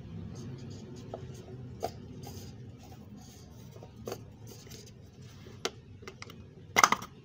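Scattered light clicks and taps of the removed oil filter cap and cartridge being handled under the hood, with a louder clatter near the end.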